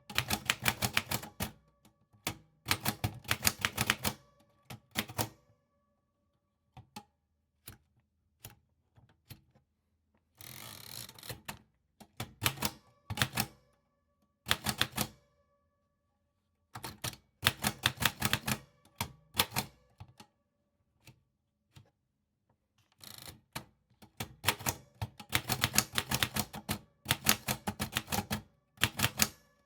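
Typewriter keys striking in quick runs of clicks, separated by pauses, twice broken by a short rushing sound, once about a third of the way in and again past three quarters.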